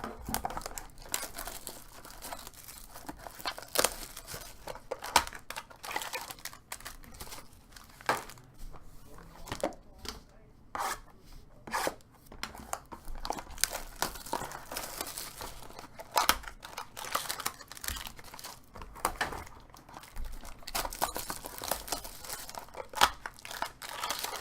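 Card-pack wrappers being torn open and crinkled: a long run of irregular tearing and crackling rustles.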